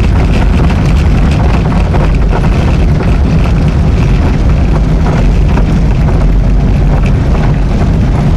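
Allegro 2000 ultralight aircraft's engine and propeller running, heard loud and steady from inside the cockpit with heavy low rumble and wind buffeting on the microphone, on landing at a grass strip.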